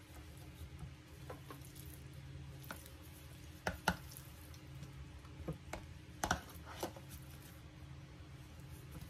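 Light clicks and knocks of a knife and boiled cabbage leaves being handled on a plate, two sharper clicks about four seconds in and a few more around six to seven seconds, over a steady low hum.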